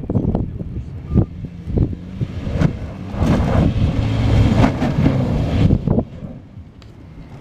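Toyota Land Cruiser Prado SUV's engine running at low speed on a rutted dirt track. It gets louder as the vehicle comes close, about three to six seconds in, then eases off.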